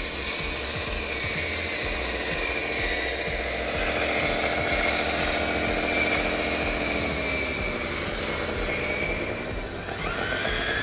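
Electric drive and hydraulic pump motors of a DXR2 1/14 scale RC dozer whining steadily as it pushes a load of dirt with its blade. The pitch sags and recovers near the end.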